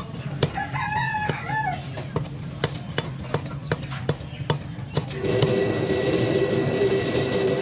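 A cleaver chopping chicken on a wooden log block, about two sharp chops a second. A rooster crows once for just over a second, about half a second in. About five seconds in, a steady droning sound with several held tones comes in and the chopping fades under it.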